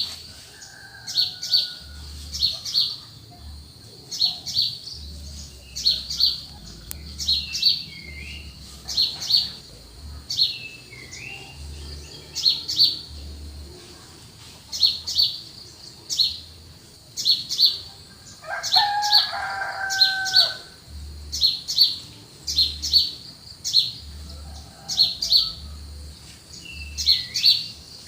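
Small birds chirping: short high chirps, often in quick pairs, repeating every second or so, with a few falling whistled notes between them. About two-thirds of the way through, a lower, longer call with several pitches lasts about a second and a half.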